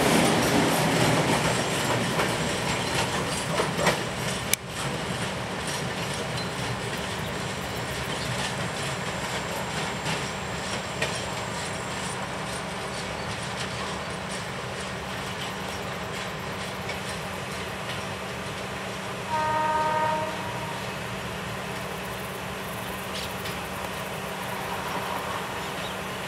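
A loaded freight train's wagons running over the rails as the last cars pass and roll away, loudest at first and then fading to a steady distant noise. About twenty seconds in there is one short horn blast of about a second from the distant lead locomotive, an ALCO RSD-35 diesel.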